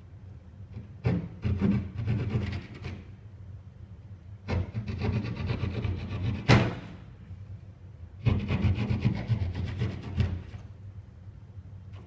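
A small handsaw cutting through drywall in three bouts of quick back-and-forth rasping strokes, each two to three seconds long, with short pauses between.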